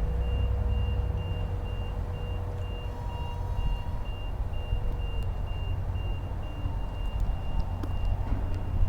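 A vehicle's reversing alarm beeping at an even pace, over a steady low rumble.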